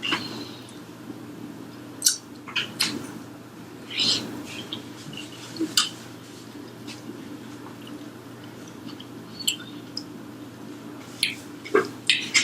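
Close-miked eating of crispy fried chicken: short crackly bites and mouth sounds every second or two, over a steady low hum.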